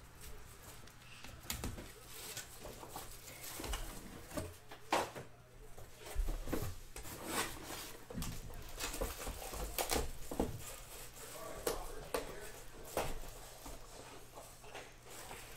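Hands handling trading cards in hard clear plastic holders and the cardboard boxes they come in: irregular sharp clicks and taps, with some rustling of a plastic wrapper.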